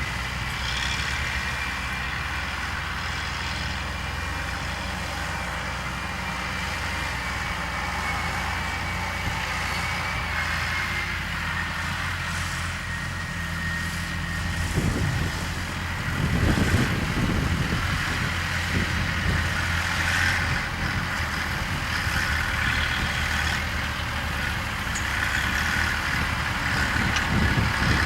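Farm tractor engines and a potato harvester running steadily together, with a steady high whine above the diesel drone. There is a louder, rougher stretch a little past halfway.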